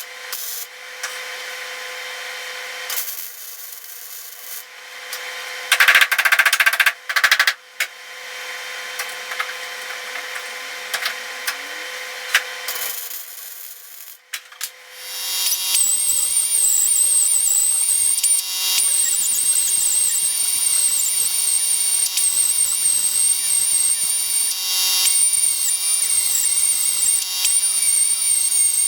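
Power tools working the sheet metal of a truck cab during rust repair: uneven tool noise with loud harsh bursts about six to seven seconds in, then from about fifteen seconds a tool running steadily with a high, slightly wavering whine.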